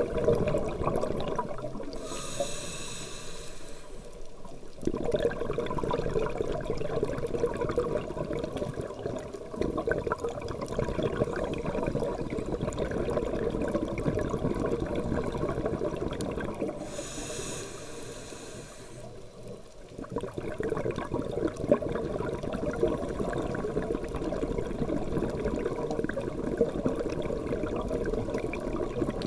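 Scuba regulator breathing heard underwater: two inhalations, each a high hiss of about two seconds, a little after the start and again past the middle, between long stretches of bubbly exhalation noise.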